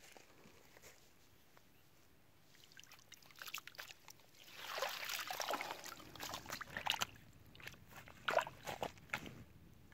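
Water sloshing and trickling as a fishing net full of caught catfish is pulled out of shallow water, loudest about halfway through. It is followed by sharp crackles of the wet net and fish against the stones.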